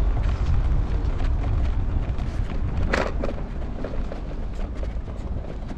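Wind buffeting the microphone outdoors: a steady, deep rumble, with one short, sharper noise about three seconds in.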